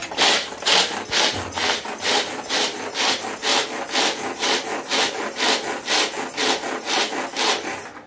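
Pull-cord hand chopper (an onion chopper) crushing roasted peanuts coarsely. The cord is pulled over and over at about two and a half strokes a second, each stroke a short whirring rattle of peanuts against the spinning blades and plastic bowl. It stops abruptly near the end.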